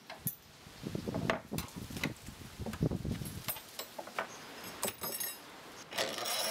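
Steel spanner turning the nuts on threaded-rod gluing clamps: irregular metallic clinks and rattles, with a few knocks of the wooden clamp bars.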